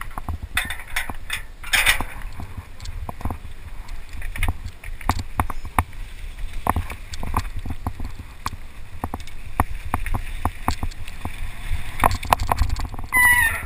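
Mountain bike rattling and clattering over rough rocky ground at speed, with many sharp knocks and clicks from the frame and drivetrain, under a steady low wind rumble on the action camera's microphone.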